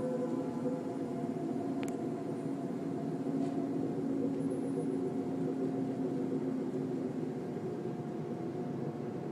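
A steady, low droning hum made of several held tones, with a faint tick about two seconds in.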